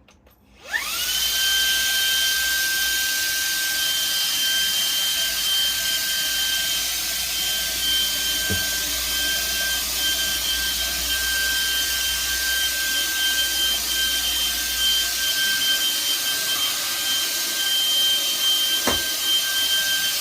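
Shark WandVac cordless handheld vacuum switched on about a second in, its motor whining up to speed and then running steadily with a high whine over the rush of air.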